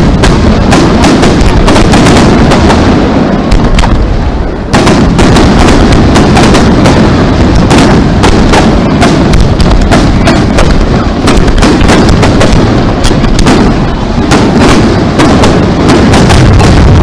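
Fireworks barrage: aerial shells bursting in rapid, overlapping succession, very loud, with a short break about four and a half seconds in.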